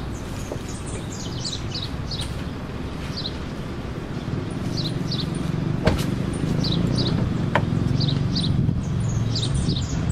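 Songbirds chirping outdoors: short, high, falling chirps, often in pairs, over a steady low rumble. A sharp knock comes about six seconds in and a fainter one over a second later.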